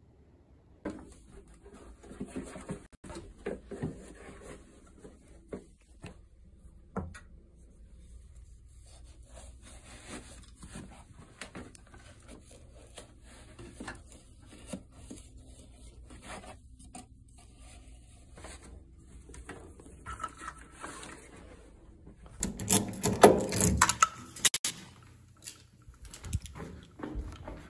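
Close-up handling sounds: objects rubbed and scraped with scattered light knocks, and a louder rustling, scraping spell a little over three-quarters of the way through.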